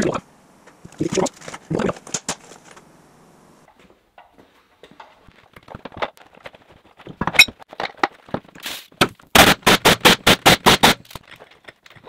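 A few metal clanks of tool work, then, about nine seconds in, a pneumatic impact wrench fired in a rapid string of about ten short bursts, lasting about a second and a half.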